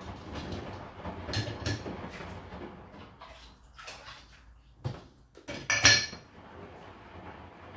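Dishes and cutlery clinking and knocking as they are loaded into a dishwasher's racks. There are a few knocks, with the loudest, ringing clink about six seconds in.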